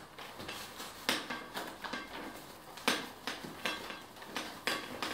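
A glossy A4 magazine being pushed down into a smooth calf-leather tote: irregular sharp crinkles and rustles of paper against the leather, the loudest about a second in and near the middle.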